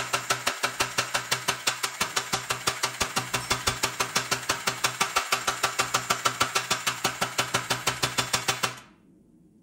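Kinyon-style pneumatic power hammer striking red-hot steel between its dies in rapid, even blows, about six a second, drawing out a knife blade. The blows stop suddenly about nine seconds in.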